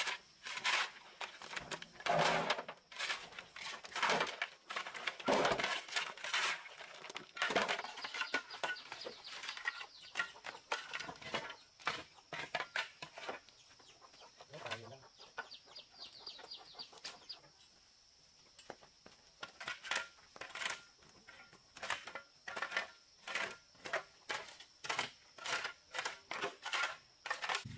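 A series of sharp knocks or clicks, irregular and close together at first, thinning out about halfway through, then coming about three a second over the last several seconds, over a steady high-pitched hum.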